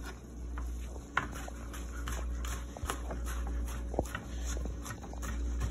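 Kitchen knife chopping garlic cloves on a plastic cutting board in slow, irregular taps, over a steady low hum.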